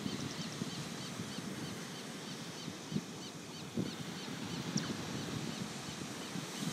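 Ocean surf on the beach, with wind buffeting the microphone in gusts. Over it, a high chirp repeats about three times a second and stops about four seconds in.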